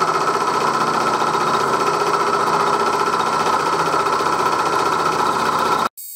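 1938 Bridgeport M-head milling machine running, its end mill cutting into a metal cylinder block under flood coolant: a loud, steady mechanical drone with a fast, even rhythm. It cuts off abruptly near the end, leaving a much quieter hiss.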